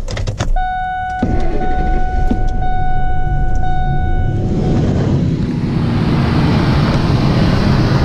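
Ford F-150 4.6L V8 being cranked with the key: a few clicks, then the door-open chime rings in pulses about once a second while the starter turns the engine over. It is a crank test of a truck whose no-start the owner puts down to a failing fuel pump.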